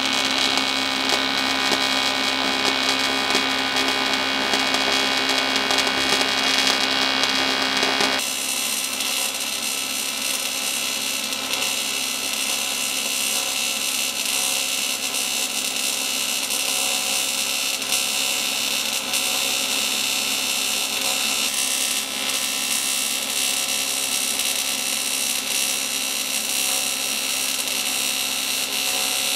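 AC TIG welding arc on aluminium buzzing and hissing steadily as filler rod is fed in. The aluminium is dirty, and the arc is throwing contamination out of it. The tone of the buzz shifts abruptly about eight seconds in.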